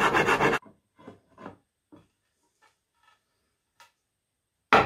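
A hand rasp cuts across a wooden axe handle in rapid, even strokes, then stops abruptly about half a second in. A few faint handling knocks follow, and near the end there is a single loud knock.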